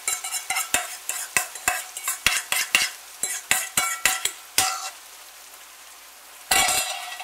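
A utensil scraping and knocking in quick strokes, about four a second, as a cream and egg mixture is worked out of an enamel bowl into a frying pan of bacon and onion. A low frying sizzle runs under it. Near the end the knocks stop, and there is a brief louder scrape.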